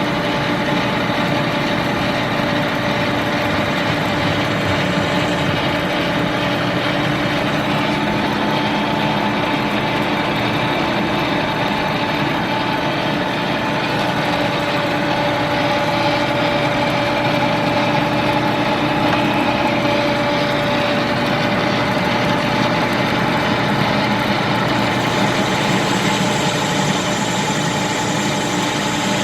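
Victor 1640 manual lathe running steadily while machining round stock, its motor and gearing giving a constant hum with several held tones. A thin high hiss joins near the end.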